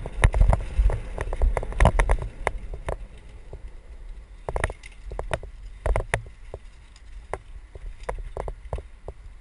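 Mountain bike rattling and clattering along a rough dirt trail, heard from a helmet-mounted camera: irregular sharp knocks and clicks over a low rumble, busiest in the first couple of seconds and again briefly about halfway through.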